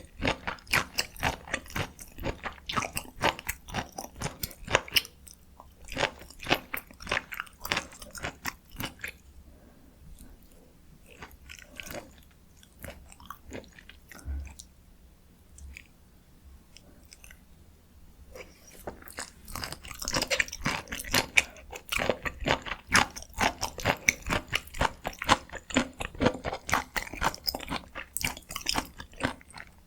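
Close-miked eating of dakgalbi, spicy stir-fried chicken: a dense run of rapid chewing clicks and mouth sounds. It thins out to a quieter, sparser stretch from about 9 to 19 seconds in, then grows dense and louder again.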